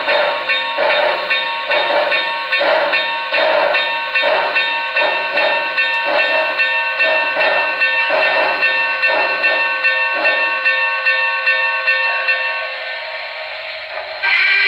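Sound decoder of an HO-scale Norfolk & Western Y6b 2-8-8-2 model steam locomotive, played through its onboard speaker: rhythmic exhaust chuffs, about two a second, that slow and die away as the model coasts to a stop, over steady tones. A louder steady tone starts just before the end.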